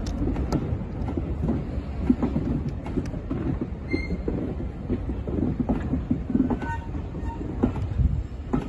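Railway passenger coaches rolling past on the track: a steady low rumble of wheels with irregular clanks and knocks, and short thin wheel squeals about four seconds in and again around six to seven seconds.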